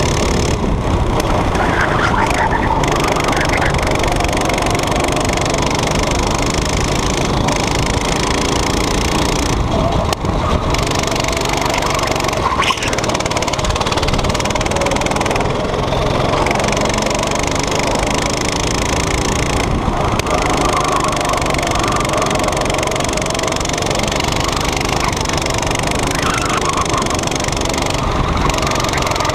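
Kart engine running hard, heard from on board the kart, its pitch rising and falling as the kart accelerates out of corners and lifts into them.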